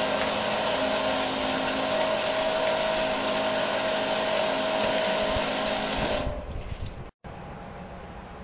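Small 12-volt water pump, run off a battery charger's 2-amp setting, driving a cone spray nozzle in a gasifier water scrubber: a steady hiss of spraying water with a steady whine from the pump. The sound cuts off about six seconds in as the spray stops, with the supply bucket nearly empty.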